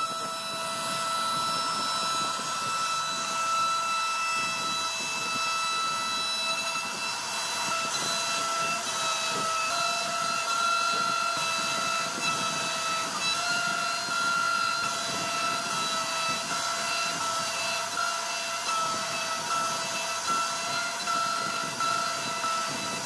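CNC router spindle whining steadily as its bit carves fluted grooves into a wooden panel, over a hiss of cutting. The pitch of the whine shifts slightly now and then.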